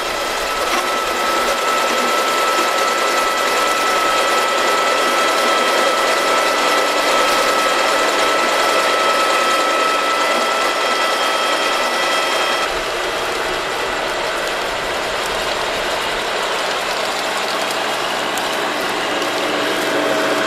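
Tolmac MT12 front-mounted potato lifter running under load, a dense mechanical rattle and clatter as its discs and sieve webs carry potatoes and soil, with a steady high whine. About twelve seconds in, the whine drops away and the clatter goes on a little lower in tone.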